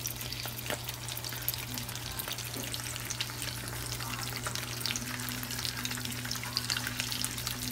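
Egg frying in avocado oil in a nonstick skillet: a steady sizzle thick with fine crackling pops, over a low steady hum.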